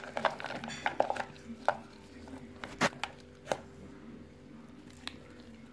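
Chunks of damp orchid bark dropped by hand into a plastic pot, landing with light, irregularly spaced knocks and clatters, about half a dozen, thinning out in the last couple of seconds.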